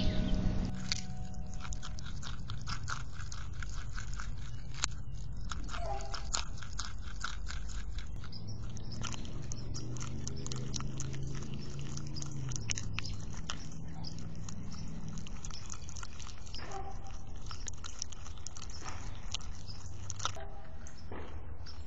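Groundhog biting and chewing a chunk of raw carrot close to the microphone: a steady run of crisp crunches and chewing clicks. Background music fades out in the first second.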